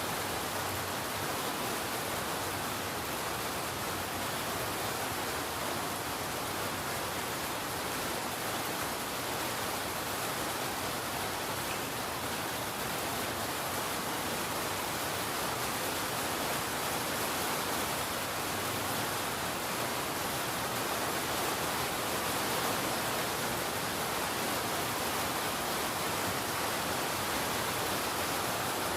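Steady rain, an even hiss with no distinct drops or changes.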